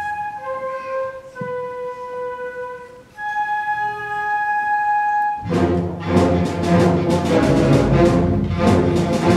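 School concert band playing: a few wind instruments hold soft, sustained notes, then about five seconds in the full band enters loudly with a run of sharp, accented chords.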